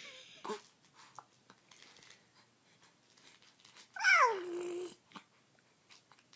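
Five-month-old baby's voice: a short sound about half a second in, then one drawn-out coo about four seconds in that slides down in pitch and levels off.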